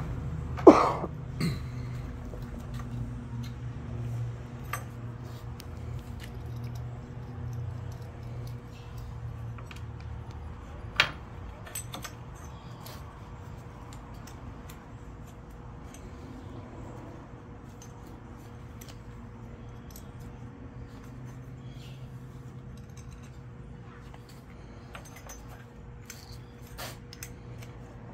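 Copper tubing and fittings clinking and knocking as they are handled and pushed onto a brass valve, with a sharp metal clank about a second in and another about eleven seconds in, over a low hum that fades in the first half.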